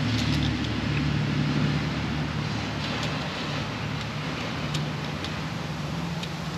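A steady low mechanical hum, with a few faint clicks of a screwdriver and wire terminals being worked on an outlet receptacle.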